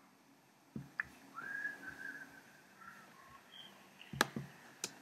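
Soft whistling: a few wavering notes, one held longer about a second and a half in, then shorter, lower notes. Several sharp clicks and knocks, the loudest about four seconds in.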